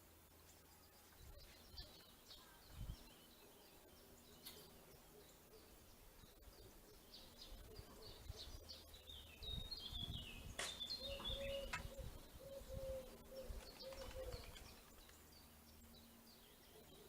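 Small songbirds chirping faintly in short, scattered calls, busiest in the second half, with a few low thumps.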